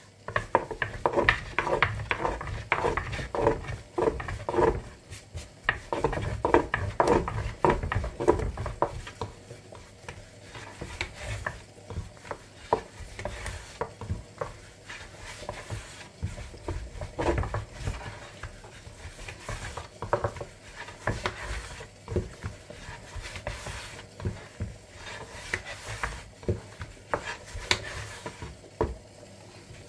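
Hands and a long, thin wooden rolling pin working gözleme dough on a wooden board: a run of regular knocks, about two a second, for the first eight seconds or so, then lighter clicks and rubbing as the pin rolls the sheet out.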